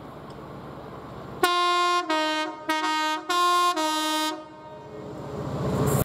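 Train's two-tone horn sounding five short blasts in quick succession, alternating high and low notes, starting about a second and a half in. Afterwards a rising rumble builds as a train nears.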